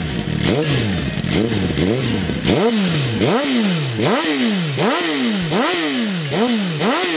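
Suzuki GSX-R1000R inline-four engine revved in repeated quick blips through GPR slip-on silencers, each rev rising and falling in under a second. First comes the Furore Evo4 Poppy. About two and a half seconds in the sound changes to the Albus Evo4 Ceramic silencer, whose blips are higher-pitched and come a little faster.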